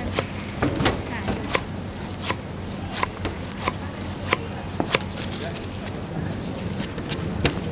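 Knife chopping pineapple: sharp, irregular strokes about one or two a second, then a pause of about two seconds before one last stroke near the end.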